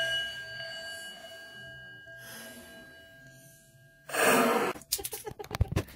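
A bell-like chime rings and fades away over about four seconds. Then comes a sudden loud rush of noise, followed by a quick run of rattling clicks near the end.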